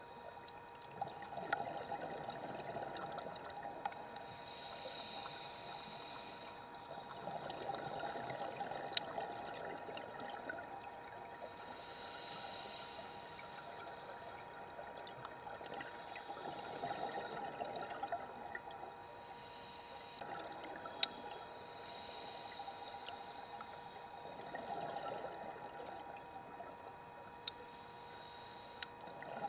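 Scuba diver breathing through a regulator underwater: a hiss on each inhale alternating with a bubbling rush of exhaled air, cycling slowly over a few breaths. A faint steady hum lies underneath, with an occasional sharp click.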